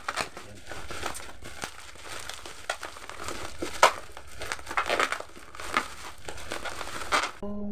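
Plastic parcel packaging, a black courier pouch and the wrapping inside it, being crinkled and pulled open by hand: continuous rustling with irregular sharp crackles, a few of them louder.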